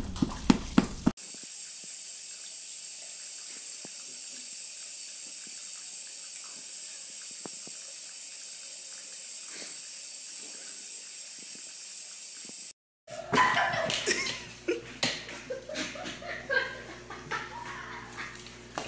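Bathroom tap running a thin stream of water into a sink: a steady hiss for about eleven seconds that cuts off suddenly. It is preceded by a second of sharp knocks and followed by a busier stretch of clatter and knocks.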